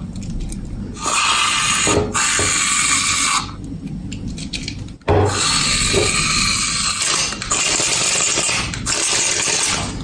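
Aerosol can of shaving foam hissing as it sprays foam onto slime. It comes in bursts: two short sprays between about one and three seconds in, then a longer spray from about five seconds in with only brief breaks.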